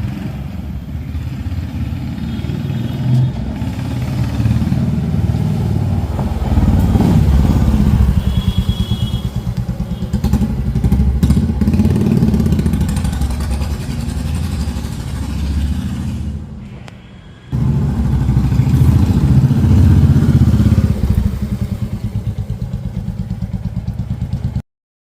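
Royal Enfield Bullet 350's single-cylinder engine running through a Mini Punjab silencer with a rapid, even exhaust thump. It grows louder over the first several seconds, rises and falls, breaks off briefly about 17 seconds in, returns loud, and cuts off suddenly near the end.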